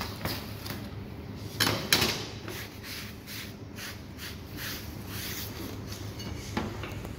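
Kitchen handling sounds: a series of short knocks and rustles as the rolls are set on the paper-lined metal tray and the cutting board is wiped, with one louder knock about two seconds in, over a steady low hum.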